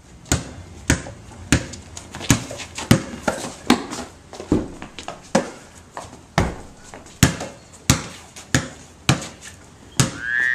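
A basketball being dribbled on a concrete patio, with sharp bounces coming steadily about every 0.7 seconds.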